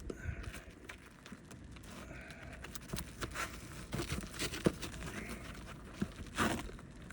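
A roof shingle being worked loose for removal: irregular scraping, crinkling and tearing noises with a few light knocks, and a longer scrape near the end.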